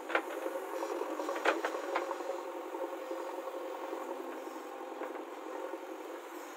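JCB 3DX backhoe loader's diesel engine running steadily while the backhoe digs, with two sharp metallic clanks in the first two seconds.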